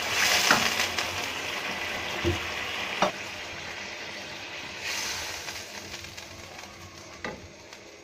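Water sizzling and hissing in a hot pan of ghee-fried rice, the hiss slowly dying down. A wooden spoon stirring the pan gives a few short knocks.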